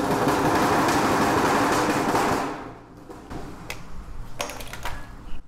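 Sheet-metal work with tin snips on galvanized steel: a steady scraping for about two and a half seconds, then a few sharp metallic clicks.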